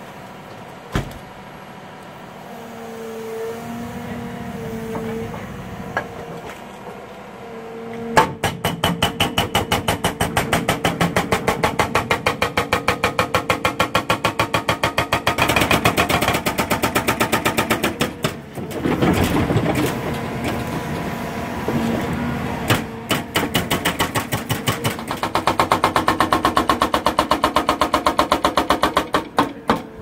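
Hydraulic breaker on a Cat M318F wheeled excavator hammering into the ground: a rapid, steady train of blows starts about eight seconds in, stops for a few seconds after the middle, then resumes until near the end. Before the hammering the excavator's engine runs with a steady hum.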